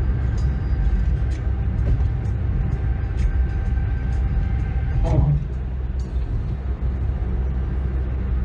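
Steady low rumble of a moving road vehicle heard from inside, with faint steady tones and small rattles over it. A brief voice sounds about five seconds in.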